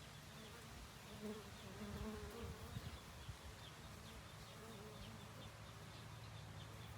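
Faint buzzing of honeybees in flight, a wavering hum that swells and fades, strongest through the first half.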